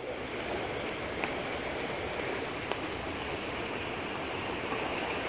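Steady rushing of flowing river water at the foot of a concrete wall, with a few faint ticks.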